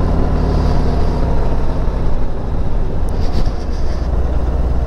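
Harley-Davidson Street Glide Special's V-twin engine running as the bike rolls slowly; the note roughens about midway as the rider eases off, and it settles into a steadier low drone near the end.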